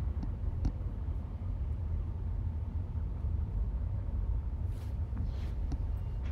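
Road noise inside a moving car's cabin on a highway: a steady low rumble of tyres and engine, with a couple of faint clicks early and a few soft swishes about five seconds in.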